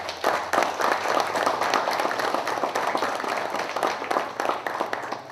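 Applause from a small audience, many people clapping hands steadily and fading near the end.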